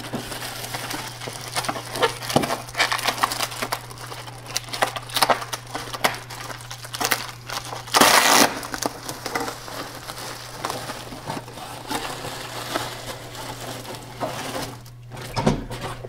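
Irregular clicks, knocks and rustling from hands working inside a tall case clock among its chime tubes and weights, with a brief scraping rush about halfway through.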